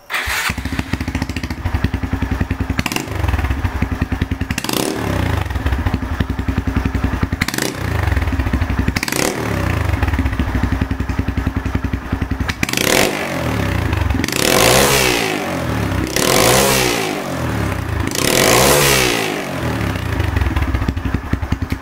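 Honda Grom's 125 cc single-cylinder engine, standing still, through an OVER Racing TT-Formula RS full-titanium exhaust: idling with several short throttle blips, then three longer revs that rise and fall near the end.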